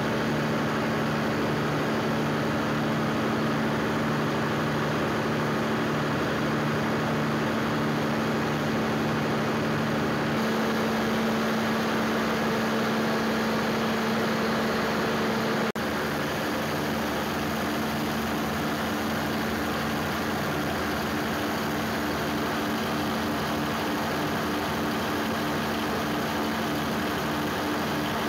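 1-megawatt generator-set engine running steadily at constant speed, producing electricity at 50 Hz. The sound dips for a moment about sixteen seconds in and then carries on slightly quieter.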